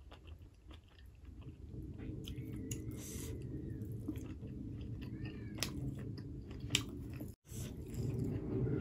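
Close-miked chewing and mouth sounds of a person eating a hand-fed mouthful of rice and curry, with small wet clicks. The sound cuts out for a moment about seven seconds in.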